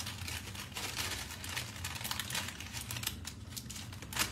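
A sheet of paper pattern rustling and crinkling as it is folded into pleats by hand, with many quick, irregular crackles.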